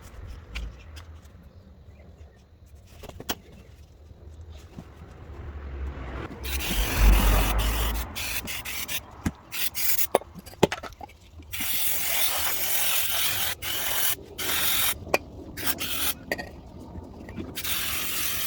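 Scraping and scrubbing on the metal body of a brake caliper while its exterior is being cleaned. It is quiet with a few clicks at first, then harsh scraping comes in spells from about a third of the way in, most sustained near the end.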